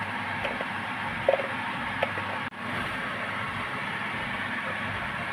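Steady hiss of food sizzling in a frying pan, with a few light clicks of a utensil; the sound drops out for a moment about halfway through.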